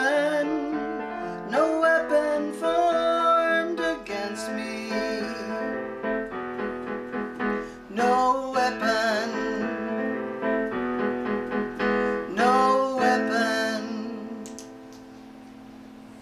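Korg digital piano played in chords, with a woman singing a few phrases over it. About 14 seconds in the song ends on a held chord that dies away quietly.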